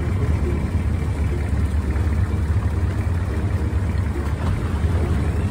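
Wooden longtail boat's engine running steadily under way, a loud low rumble.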